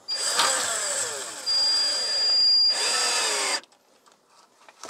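A power tool running for about three and a half seconds, with a steady high whine in the middle of the run; it stops suddenly.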